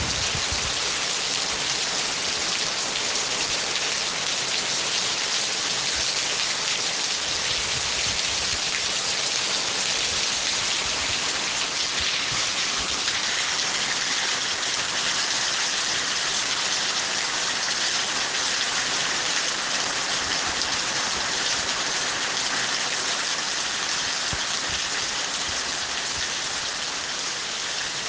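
Steady heavy rain pattering on surfaces, an even dense hiss, with a few faint low rumbles underneath.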